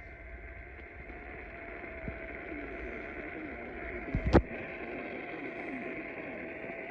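Poor-quality radio reception: a steady hiss with a constant thin hum tone and faint warbling underneath, a small click about two seconds in and a sharp pop about four seconds in.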